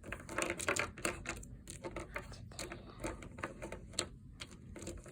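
Irregular light clicks and taps of small toys being handled and moved about, several a second, with no steady rhythm.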